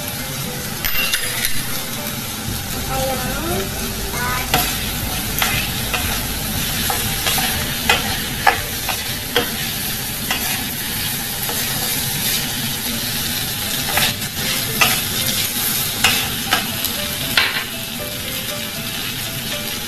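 Glutinous rice with mushrooms and Chinese sausage sizzling as it is stir-fried in a nonstick wok. A spatula scrapes through the rice, and sharp knocks of the utensil on the pan come irregularly, most often in the middle part.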